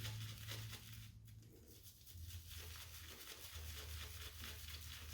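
Quiet room tone with a steady low hum and a few faint, small ticks.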